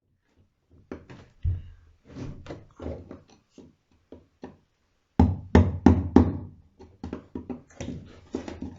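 Irregular knocking and thumping, like tools or timber being handled and struck, with a run of heavier knocks about five seconds in.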